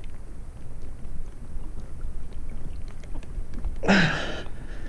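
Low rumbling handling noise with faint small clicks as a bar-end weight is worked into a motorcycle handlebar, and a short grunt about four seconds in.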